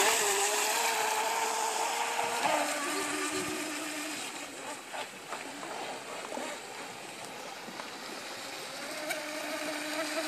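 Small electric radio-controlled speedboat running flat out, its motor whining steadily over the hiss of the hull and spray on the water. The whine drops in pitch about two and a half seconds in and fades as the boat moves away, then grows louder again near the end as it comes back.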